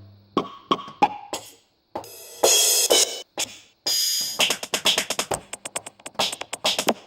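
A sparse drum beat of short, sharp hits with silent gaps between them, two longer hissing noise bursts in the middle, and quicker hits near the end.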